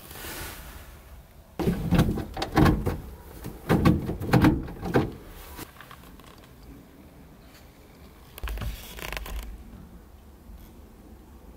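A series of heavy clunks and knocks in a small car's cabin, bunched together from about a second and a half in to about five seconds, then a softer rustling thud near the end.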